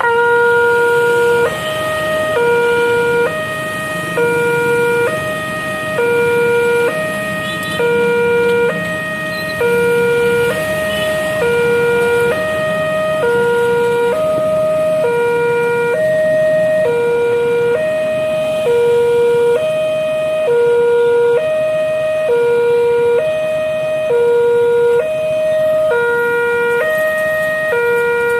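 Railway level-crossing warning siren, the crossing's newly fitted alarm. It starts suddenly and sounds a loud electronic two-tone call, switching between a lower and a higher pitch about once a second, over road traffic.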